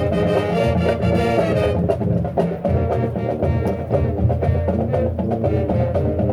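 Marching band playing: sustained chords from the winds over drums and percussion.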